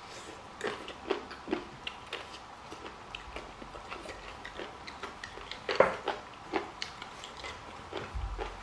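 Close-miked chewing of boiled chicken: irregular wet mouth clicks and smacks, the loudest about six seconds in.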